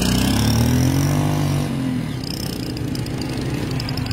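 Motorcycle engines running as motorbikes ride up a dirt track; one engine's pitch rises over the first second and a half, then the sound settles into a steadier, slightly quieter hum.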